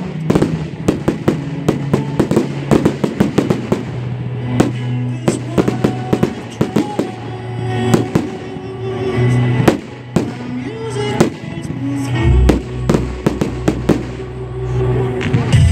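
Aerial fireworks bursting in many sharp, irregular bangs and crackles, densest in the first few seconds and sparser later, over music with sustained notes.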